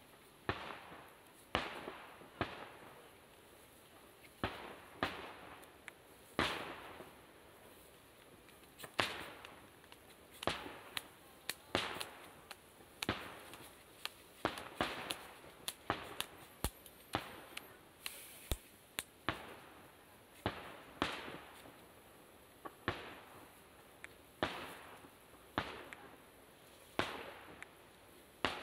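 Aerial firework shells bursting one after another: irregular sharp bangs, sometimes two or three in a second, each trailing off over a fraction of a second.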